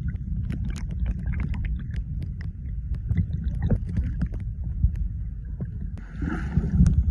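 Flowing stream water heard through a submerged phone microphone: a steady muffled low rumble with many small scattered clicks. From about six seconds in, a muffled higher-pitched hiss joins it.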